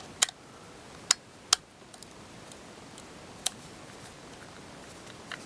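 Hard plastic and a screwdriver being handled: four sharp clicks and taps, with fainter ticks between them, as the toy's plastic electronics box is worked at.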